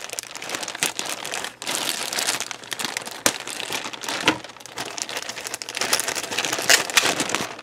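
Thin clear plastic bag crinkling and crackling as hands handle it, with a brief lull about one and a half seconds in.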